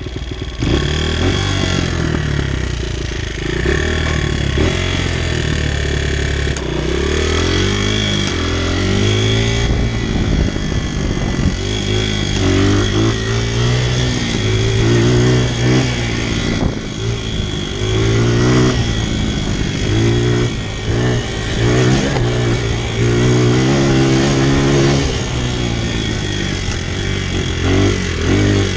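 Honda CRF100F dirt bike's small four-stroke single-cylinder engine running while ridden, its pitch rising and falling back over and over as it accelerates and eases off.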